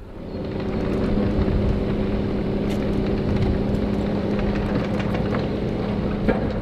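A vehicle engine running steadily, a steady hum that fades in over the first second, with a short knock near the end.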